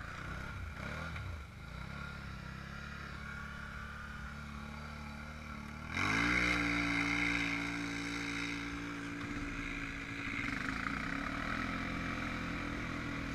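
Honda Rancher 420 ATV's single-cylinder engine running at a steady low speed, then revving up sharply about six seconds in and held at higher revs, easing off a little near the end.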